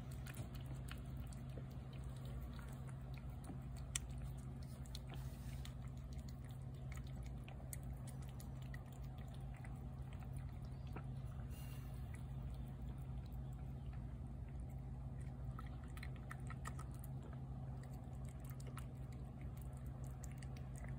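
A cat chewing and lapping shredded chicken wet food in gravy: a quick run of small wet clicks and smacks, with one sharper click about four seconds in, over a steady low hum.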